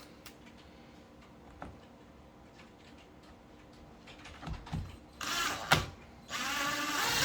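Power drill driving a screw into a door hinge: a short burst of the motor a little after five seconds in, then a longer, louder run near the end, after a few seconds of quiet with small handling clicks.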